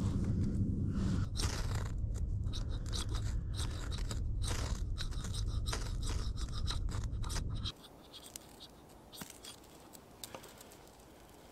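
Hatchet blade shaving and scraping wood off a log in many quick strokes over a steady low rumble. About eight seconds in the sound drops sharply to a quiet background with a few faint scrapes and ticks.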